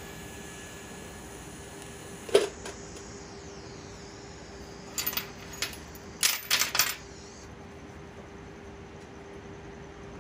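TIG welding arc hissing steadily, then cutting off about two seconds in with a sharp metallic clank. Two quick groups of metal clinks and chain links jangling follow as the steel horseshoe and chain are moved on the steel welding table.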